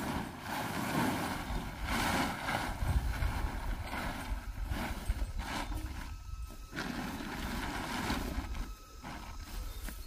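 A woven plastic tarpaulin rustling and crackling in a run of rough bursts as it is pulled and spread over a heap, easing off near the end.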